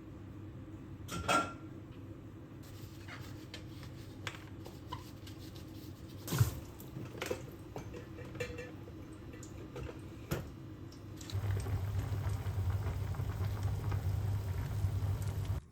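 Household handling sounds: scattered light knocks and clinks of objects being moved, then a steady low hum for the last four seconds or so that cuts off suddenly.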